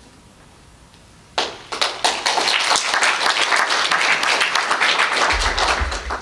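Audience applauding: many hands clapping, starting about a second and a half in and dying down near the end.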